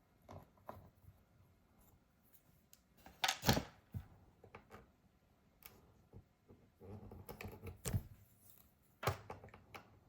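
Scattered small clicks and scrapes of tools and parts being handled inside an opened MacBook Pro A1502, with a louder scrape about three and a half seconds in and a stretch of rubbing near the end.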